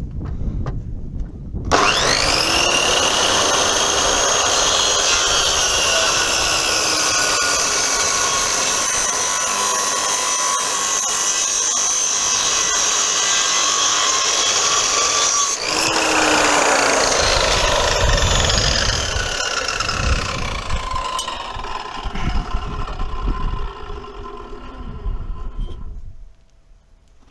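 Hitachi circular saw starting up about two seconds in and cutting into a timber rafter to notch it, running steadily with a high whine under load. It breaks off briefly a little past halfway and starts again, then winds down over the last several seconds.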